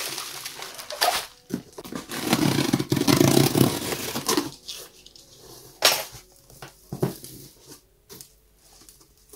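A box cutter slicing through the packing tape on a cardboard box, with a loud scraping noise a couple of seconds in. Then the cardboard flaps are pulled open with a sharp tap and some rustling.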